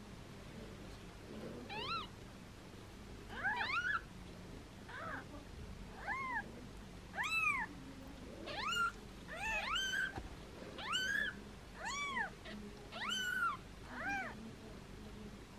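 Newborn kitten meowing over and over: about a dozen short, high calls, each rising and then falling in pitch, starting about two seconds in.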